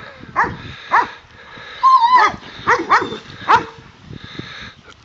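A dog barking repeatedly in short, high barks, with a brief wavering whine about two seconds in. The barking stops at about four seconds.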